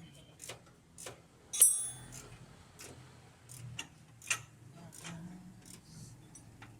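Metal hand tools and parts clicking and clinking during underchassis suspension work, in scattered light ticks with one sharp, ringing metal clink about one and a half seconds in.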